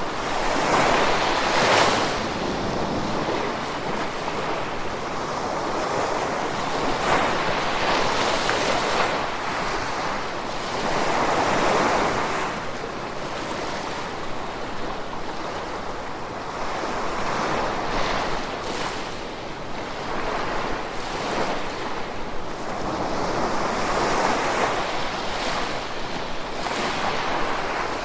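Gentle ocean surf: waves wash in one after another in swells every several seconds, over a continuous hiss of water.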